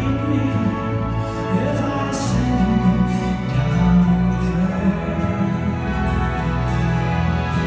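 Symphony orchestra playing a slow instrumental passage of a folk ballad, with long held notes over a strong low bass.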